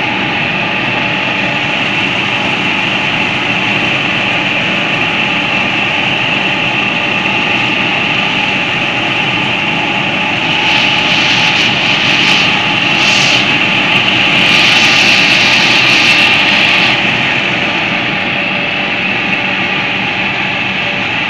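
Fiat 640 85 hp tractor working under load, driving a straw chopper through wheat stubble: steady engine noise mixed with the high whine of the chopper's spinning drum and blower. From about ten to seventeen seconds in it gets louder, with a hissing rush.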